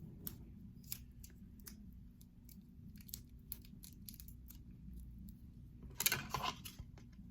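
Hands working tape around a frayed rope end: scattered small clicks and taps, and a louder rustling burst about six seconds in.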